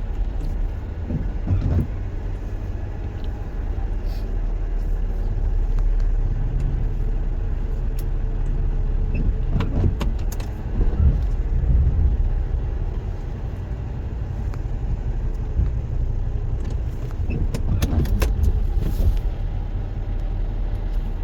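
Car driving with a steady low engine and road rumble, and a few short knocks or rattles about halfway through and again near the end.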